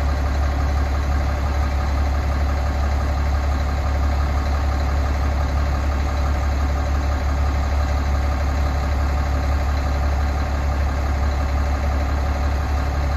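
Fire engine pumper's engine idling steadily with a deep, even hum.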